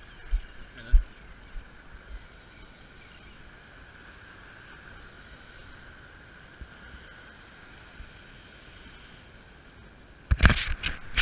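Shallow surf washing steadily around a person standing in the waves, with a few low thumps of wind on the microphone in the first second. About ten seconds in, loud buffeting bursts break in.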